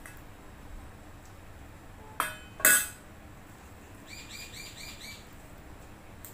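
A steel spoon clinks twice against a stainless steel bowl a little over two seconds in, the second clink the louder and ringing briefly. About four seconds in, a bird chirps a quick run of about six high notes.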